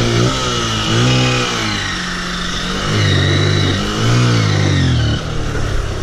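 Honda CBF150's single-cylinder four-stroke engine revving under load, its pitch rising and falling several times as the throttle is worked, with the bike pulling along a rough dirt track. The revs drop away about five seconds in.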